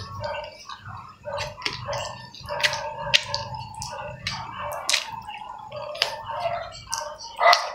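A person chewing pork and rice with the mouth open: a quick, irregular run of wet smacks and clicks of the lips and tongue, with a louder smack near the end.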